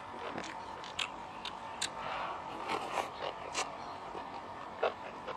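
Close-miked eating sounds of a person having noodle soup: scattered short wet clicks of chewing and lip smacks, with a soft slurp about two to three seconds in.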